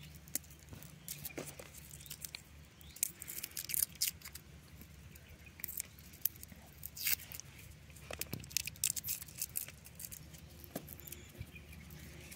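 Fingers peeling garlic cloves by hand: an irregular run of small crackles and clicks as the papery skins are pinched and torn off.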